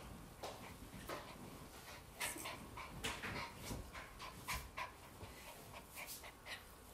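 A small poodle gives a run of short, soft whimpers and pants while being held and jostled. Rustling and soft knocks from the handling of its fur and body are heard along with it.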